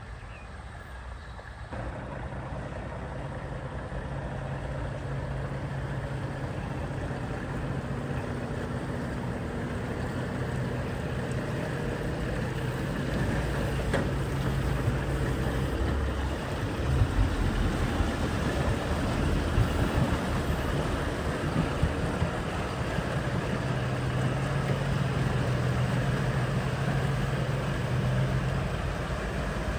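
Heavy truck engine running steadily, growing gradually louder, with a few brief knocks in the second half.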